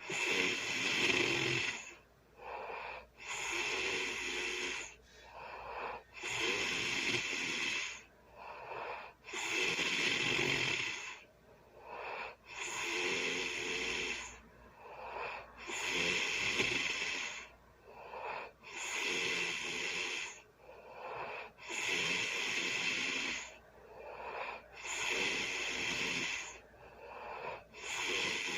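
A sleeping person snoring, a noisy breath in and out about every three seconds in a steady rhythm.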